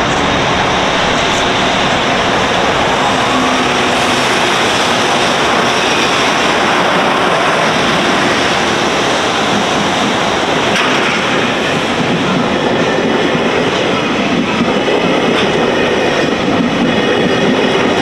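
Container freight train hauled by an EH200 electric locomotive passing close by with a roar, its wagons' wheels running over the rails in a loud, steady rumble.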